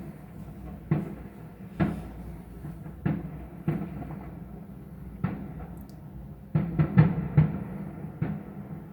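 Fireworks bursting, heard from indoors as a run of about ten dull bangs, each fading quickly, with several in quick succession near the end.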